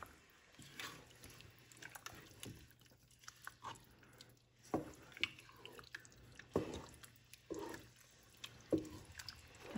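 Wooden spoon stirring a thick, chunky mixture of ground beef, tomatoes and beans in a pot: faint, irregular wet squishes and the occasional light knock of the spoon.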